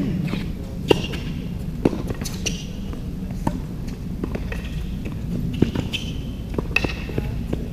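Tennis rally on a hard court: a string of sharp racquet-on-ball hits and ball bounces, roughly a second apart, with short sneaker squeaks on the court surface.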